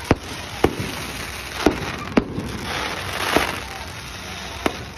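Fireworks going off: about six sharp bangs at irregular intervals of roughly half a second to a second, over a hissing crackle that swells around the middle.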